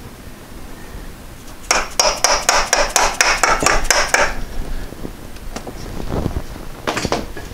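A hammer striking a 1993 VW Cabriolet's crankshaft pulley to knock it loose: about a dozen quick, sharp blows, roughly five a second, over two and a half seconds. A few lighter knocks follow near the end.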